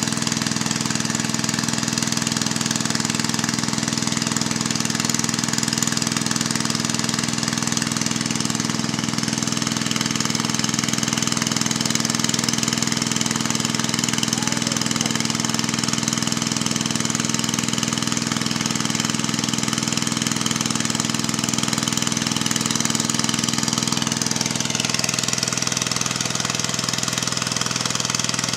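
Diesel engine driving an irrigation water pump, running steadily at constant speed.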